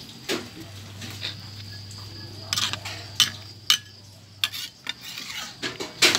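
Metal cooking utensils clinking and scraping against a wok as a pot of curry is stirred and served, with several sharp knocks in the second half over a steady low hum.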